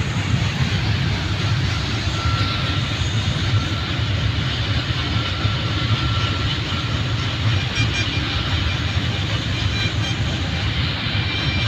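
Goods train of covered wagons rolling along the tracks: a steady rumble and rail noise with no let-up, and a faint thin whine over it through the middle.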